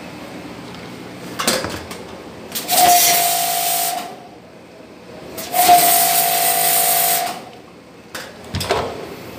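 Foam spray gun hissing in two bursts of about a second and a half each as it sprays cleaning foam, each with a steady whistling tone. A short knock comes before the first burst and another near the end.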